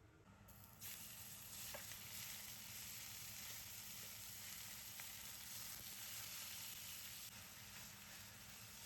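Food sizzling in a hot pan, a steady hiss that starts abruptly about a second in, with a few faint ticks.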